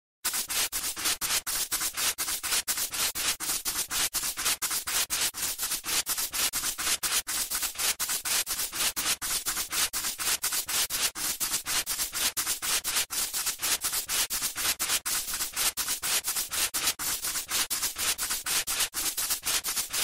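Dense, steady crackling and rustling noise made of many irregular sharp clicks, starting abruptly at the opening.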